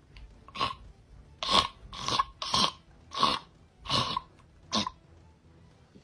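A series of about seven short, harsh coughs or hacks in a row, roughly one every two-thirds of a second.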